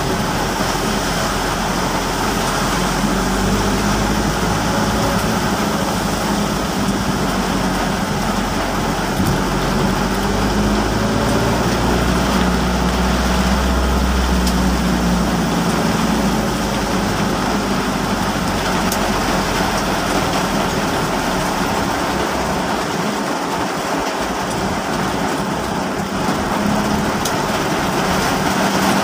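Heavy rain and wet-road noise heard from a moving vehicle: a steady hiss of the downpour over the low hum of the vehicle's engine, which swells around the middle.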